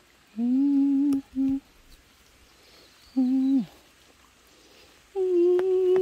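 A person humming a slow tune with no words: three short held notes, then a higher, longer note starting about five seconds in. Each note holds a steady pitch and drops away at the end.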